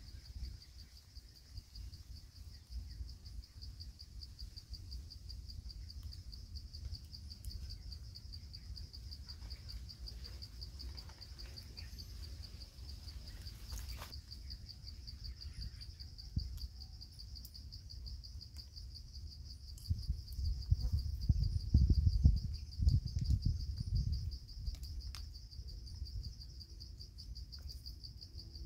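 Insects trilling steadily in a high-pitched, rapidly pulsing chorus. Under it runs a low rumble that swells into a run of louder low thumps and buffets from about twenty to twenty-four seconds in.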